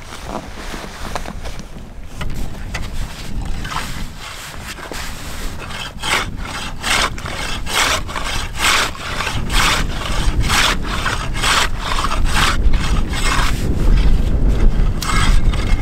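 Ice auger cutting into thick ice: a steady rasping scrape, with crisp scraping strokes about twice a second from about six seconds in and a heavier low rumble near the end.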